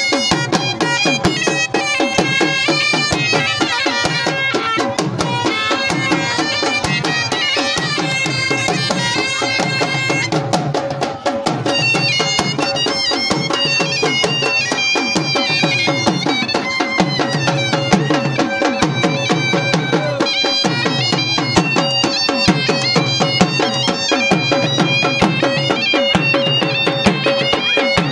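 Dhol drums beaten with sticks in a fast, steady rhythm, under a reedy wind instrument playing a melody over a steady drone, typical of a bagpipe band.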